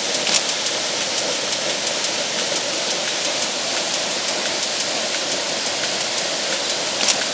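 Steady rush of a waterfall, with crisp high ticks about four a second over it.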